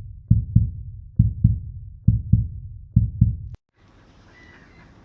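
Heartbeat sound effect: low paired lub-dub thumps, about one pair a second, cutting off suddenly about three and a half seconds in. After that comes a faint background hiss with a few light chirps.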